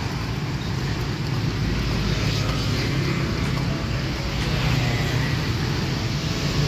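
Motorcycle and scooter traffic on a road: a steady engine hum with tyre and road noise.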